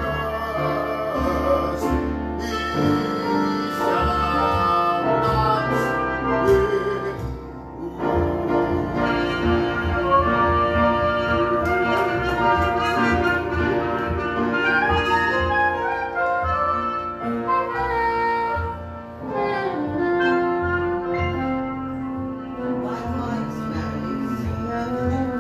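Live small jazz band playing: a saxophone carries the melody over an upright bass and piano, with a short dip in the playing about eight seconds in.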